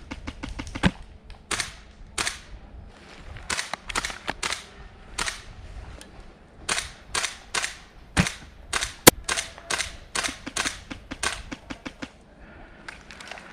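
Airsoft guns firing in an exchange: a steady scatter of sharp snaps, some single and some in quick runs of several, with one especially sharp, loud crack about nine seconds in.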